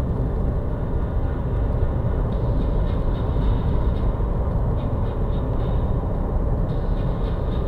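Steady low rumble of a car on the move, tyre, road and engine noise heard from inside the cabin through a dashcam microphone.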